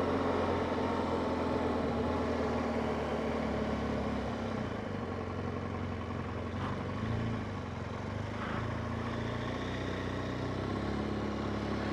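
BMW motorcycle engine running steadily while riding at low speed, its note shifting slightly up and down, with a haze of wind and road noise.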